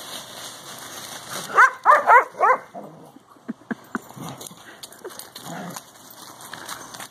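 Dog barking four times in quick succession about one and a half seconds in.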